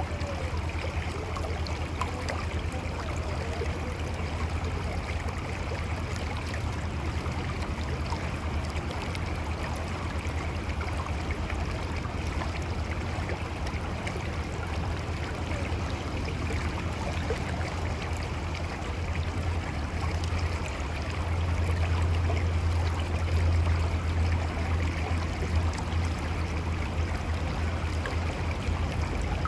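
Mountain river flowing over rocks: a steady rush of water with a low rumble and gurgling, swelling a little about two thirds of the way in.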